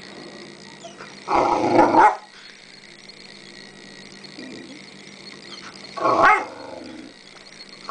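Rhodesian Ridgeback puppy barking and growling in rough play, in two short bursts: one about a second in and another near six seconds in.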